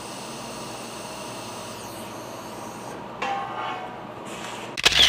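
TIG welding arc hissing steadily as a bead is run around a square steel tube at its base plate, stopping about three seconds in. A ringing metallic clang follows, then a loud brief noise just before the sound cuts off.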